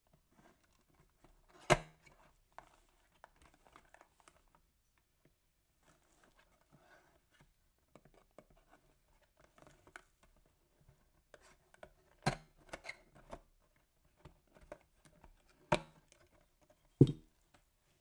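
A thin metal tool scratching and slitting along the sealed edge of a cardboard box lid, with soft rustling and light taps on the cardboard. Four sharp clicks stand out, the last near the end as the lid comes open.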